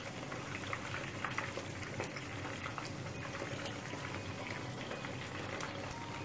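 Marinated, coated chicken pieces deep-frying in hot oil in a pan: a steady bubbling sizzle full of small crackles, with a few light taps of a fork against the pan as the pieces are turned.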